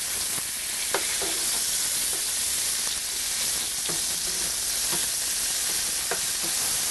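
Pepper-crusted beef tenderloin steaks sizzling steadily in clarified butter and olive oil in a skillet, with a few sharp clicks and pops as metal tongs turn them over.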